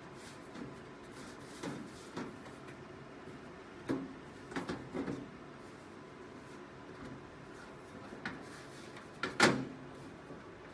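Scattered knocks and clicks from a desktop PC's metal case being handled and turned: a cluster about four to five seconds in, and one louder knock near the end.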